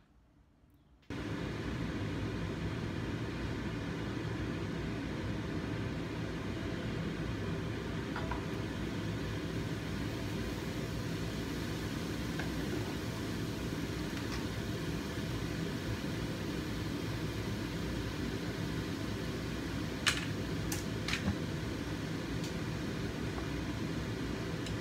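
Steady low fan-like hum that switches on abruptly about a second in, with a few sharp clicks near the end.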